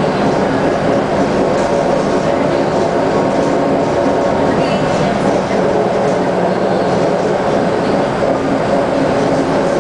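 Interior noise of a Scania L94UB city bus under way: its Scania DC9 diesel engine runs steadily with the drive and road noise of the moving bus, heard from inside the cabin.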